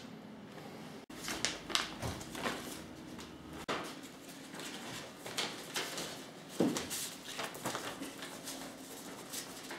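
Paper rustling as a large paper envelope is handled and opened and the sheets inside are leafed through, in short, scattered rustles.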